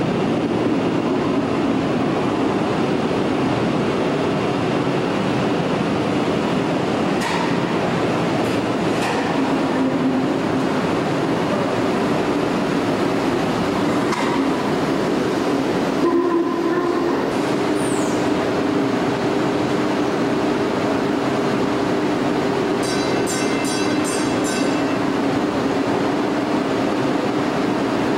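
Small electric subway car running in from the tunnel and pulling into the underground station, with a steady rumble throughout. A short, high, falling squeal comes a little past halfway, and a quick run of ringing clicks comes near the end.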